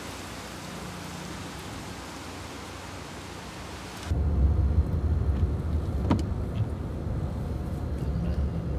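A steady hiss for about four seconds, then a sudden cut to the low rumble of a car driving on wet roads, heard from inside the cabin, with a single click about six seconds in.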